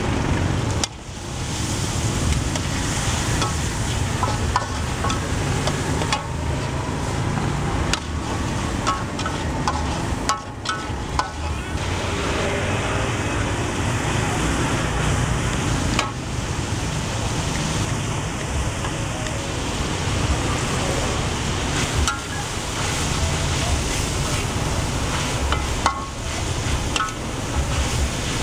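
A stir-fry of meat and leafy greens sizzles steadily in a hot wok while a metal spatula stirs and scrapes it, with occasional light clinks of the spatula against the pan.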